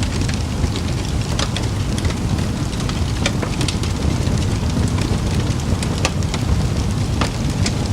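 Campfire burning: a steady low rush of the flames, with frequent sharp crackles and pops from the burning wood.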